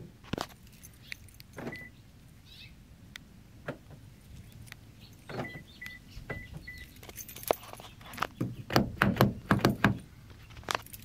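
Clicks and rattles of keys and a 2014 Toyota Corolla's door lock and handle as lock and unlock are pressed and the handle is pulled, with a few short high beeps and a dense burst of clicking near the end. The door lock is not unlocking, an intermittent fault.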